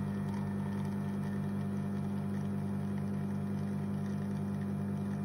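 La Marzocco Linea Mini espresso machine's rotary pump running during a shot. It makes a steady, low, even hum with a faint fast pulsing.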